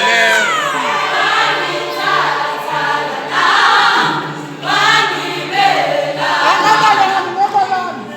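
An a cappella vocal group sings in harmony over a low held bass note, with voices sliding down in pitch near the start.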